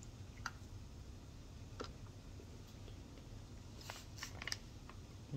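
Faint, scattered crisp crunches and clicks of calabash chalk (edible clay) being bitten and chewed, with a short run of them about four seconds in.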